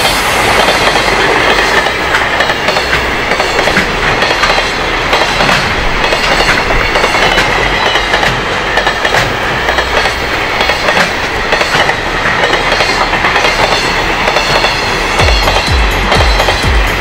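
Long container freight train hauled by a JR Freight EF210 electric locomotive passing close by: a steady rolling rumble of steel wheels on rail, with repeated clickety-clack as wheelsets cross rail joints.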